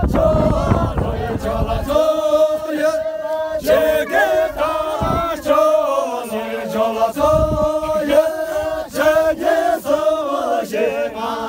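A group of men chanting together in unison, holding long notes that break and restart every second or so. Wind buffets the microphone for the first two seconds.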